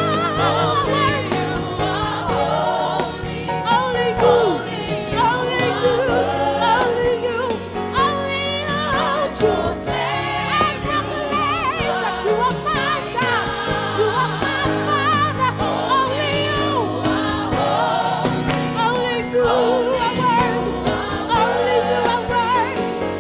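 Live gospel worship music: several voices sing wavering, drawn-out lines with no clear words over steady held chords in the low register.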